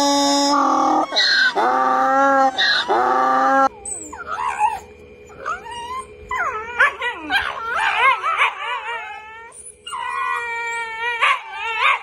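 A donkey braying in a run of drawn-out hee-haw segments, cut off suddenly a few seconds in. Then two Shiba Inus squabble with teeth bared, giving repeated high, wavering whines, yips and howls.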